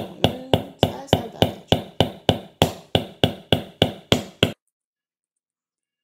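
Hammer striking a cement nail held against the bottom of a water-soaked earthenware jar, punching a drainage hole: a fast, even run of sharp knocks, about three and a half a second, each with a brief metallic ring. It stops abruptly about four and a half seconds in.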